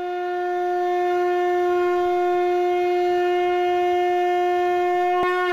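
A conch shell (shankh) blown in one long, steady, held note that swells in at the start. There is a brief click about five seconds in.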